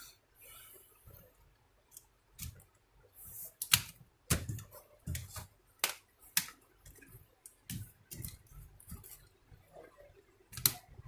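Scattered sharp clicks and taps of a laptop's casing and internal parts being handled and pressed into place during reassembly, a few of them louder than the rest.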